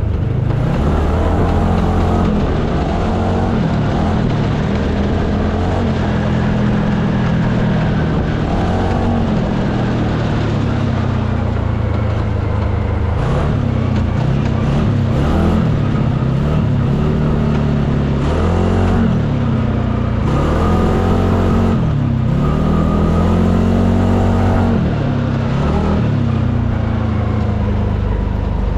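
UTV engine running under way, its pitch rising and falling again and again as the throttle opens and closes, over a steady rush of noise.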